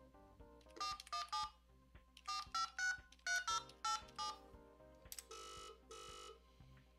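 Telephone keypad DTMF tones dialing a phone number: about ten short two-tone beeps in three quick groups, then two longer tones near the end. Soft background music runs underneath.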